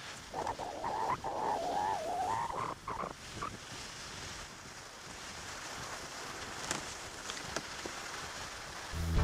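Skis scraping along a metal rail, a rasping squeal that wavers in pitch for about three seconds, then a steady hiss of skis on snow.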